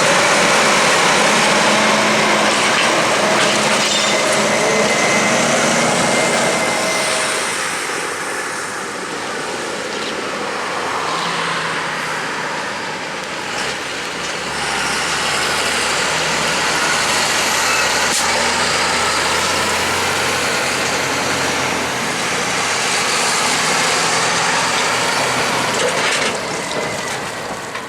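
Heavy farm machinery running, a dense mechanical din whose character shifts every several seconds. A deep steady hum joins about halfway through.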